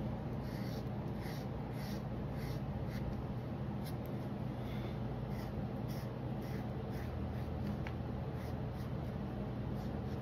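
Felt-tip marker scratching on paper in repeated short colouring strokes, roughly two a second, over a steady low hum.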